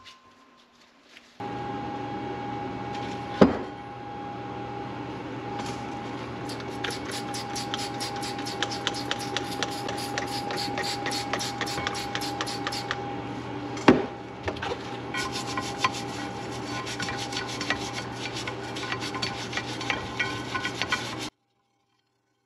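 Polishing a snowmobile clutch part: quick back-and-forth rubbing strokes, about four or five a second, over a steady hum, with two sharp knocks, one early and one about midway. The rubbing stops abruptly near the end.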